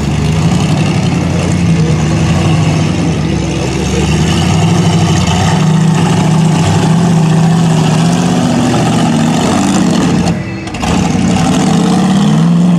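Rock bouncer buggy's engine revving hard under load as it climbs a rock face, its pitch rising and falling with the throttle. The sound dips briefly about ten seconds in, then picks up again.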